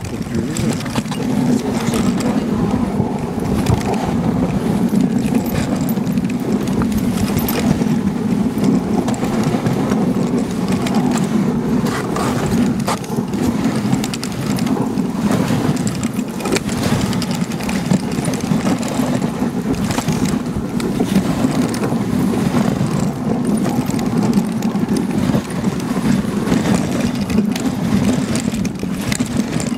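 Dog sled running over a packed snow trail: a steady scraping rumble from the runners, with frequent small knocks and rattles from the sled.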